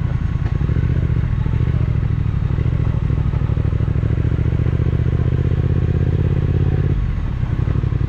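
Triumph Speed Twin 1200's parallel-twin engine running steadily at low revs, its note softening slightly near the end.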